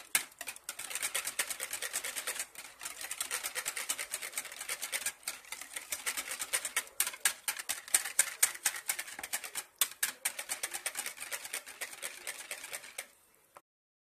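Wire hand whisk beating plain yogurt in a bowl, the wires clicking and scraping against the bowl in a rapid, even rhythm as the yogurt is loosened. The whisking stops just before the end.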